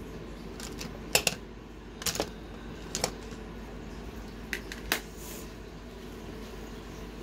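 Sharp plastic clicks from makeup cases being handled and opened, about five of them over four seconds, over a steady low hum.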